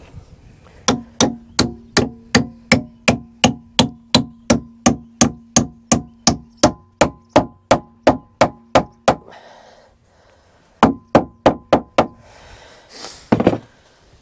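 Hammer driving copper nails into a wooden boat's timber: a steady run of about three and a half blows a second with a ringing tone held between them, a pause, then a shorter run of about six blows. A brief, louder, rougher noise follows near the end.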